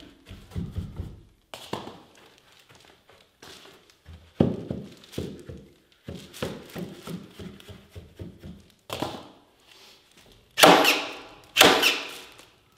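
Carpet tile being fitted onto a wooden stair step, with irregular knocks and scuffs of handling. Near the end a staple gun fires twice, about a second apart: two loud, sharp shots that ring briefly, fixing the tile to the tread.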